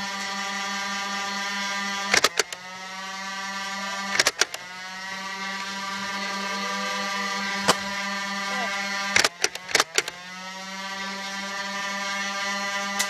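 Nerf flywheel blaster's motors whining steadily, with darts fired in short clusters, about two seconds in, four seconds in, near eight seconds and three or four times around nine to ten seconds. After each burst the motor whine drops and then climbs back up in pitch as the flywheels spin up again.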